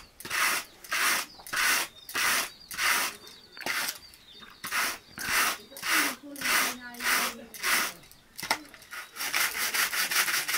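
Pair of wire-toothed hand carders brushing raw wool, a rhythmic scratching stroke about every 0.6 s, turning to shorter, quicker strokes near the end.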